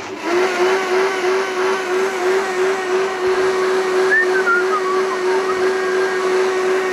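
High-speed countertop blender running steadily, puréeing blanched spinach with eggs into a smooth green pasta-dough base. The motor pitch wavers slightly in the first few seconds, then holds steady under a whirring rush.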